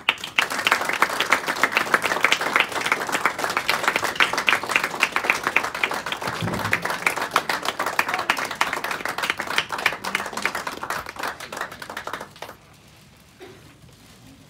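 Audience applauding: many hands clapping in a dense, steady patter that dies away about twelve seconds in.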